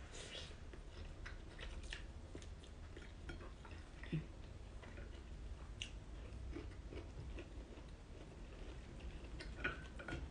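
A person chewing food quietly, eating by hand, with scattered faint clicks and mouth sounds over a low steady hum.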